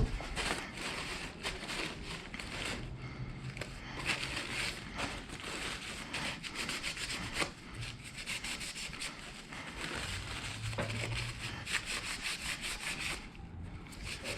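Continuous rubbing and scuffing, a rag wiping up spilled brake fluid in quick uneven strokes.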